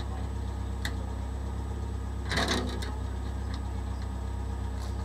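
Vehicle engine idling steadily. About two seconds in comes a brief metallic clatter as a tow chain is handled at the pickup's hitch.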